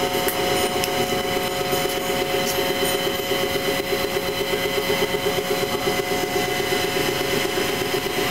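Steady mechanical drone of blower fans running, several steady hums over a fast, even throb.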